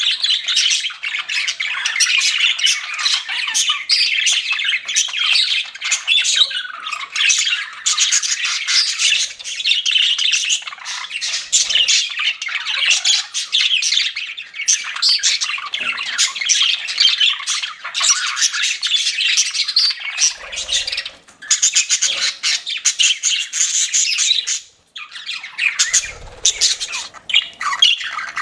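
Pet budgerigars chattering and warbling nonstop, a busy mix of rapid chirps, squawks and clicks from several birds at once, with a brief lull about three-quarters of the way through.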